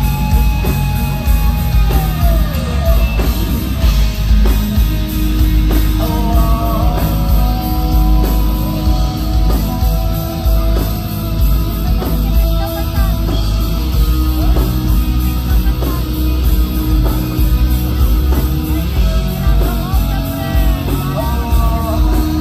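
Heavy metal band playing live: distorted electric guitars over bass and drums, with a melodic lead line that bends in pitch, falling about two to three seconds in.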